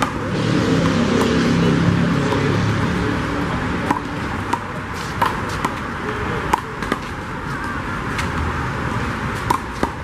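A rubber handball being struck by hands and smacking off a concrete wall and court during a doubles rally: about a dozen sharp smacks at uneven intervals. A low background rumble fills the first few seconds.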